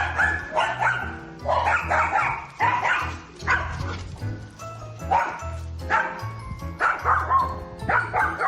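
A dog barking over and over in short, quick runs, over background music with a steady bass line.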